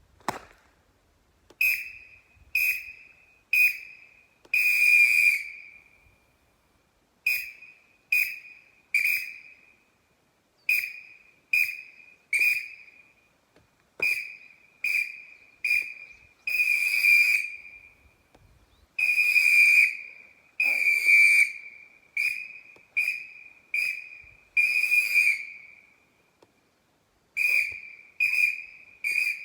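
EVERNEW PS police whistle blown in rhythmic phrases of short toots and longer blasts, each a single steady high tone, with brief gaps between them.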